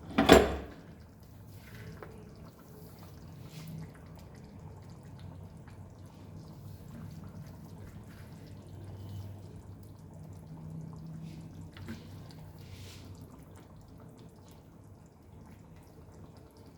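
Chopped tomatoes tipped into a pan of curry with a brief clatter at the start, followed by faint, quiet stirring and bubbling from the pan.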